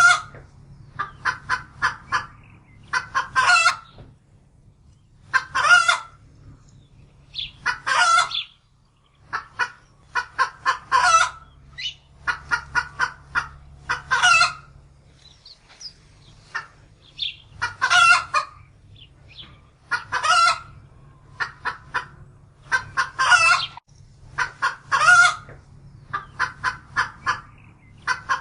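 A chicken clucking over and over in a repeating phrase: a quick run of short clucks that ends in one longer, louder squawk, about every two to three seconds.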